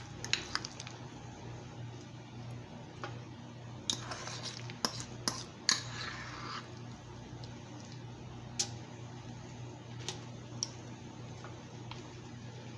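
A spoon clinking and scraping against a bowl while scooping mashed potato filling into a potato skin: scattered light clicks, about ten over the stretch, with two short scraping passages in the middle.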